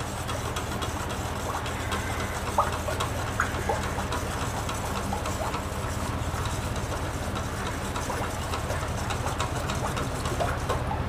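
A spoon beating yoghurt into milk in a steel bowl, with a few faint clinks, over a steady low hum.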